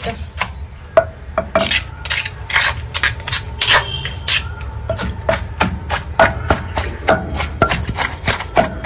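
Stone pestle pounding grated coconut, raw mango and green chilli in a stone mortar, with repeated knocks about two to three times a second.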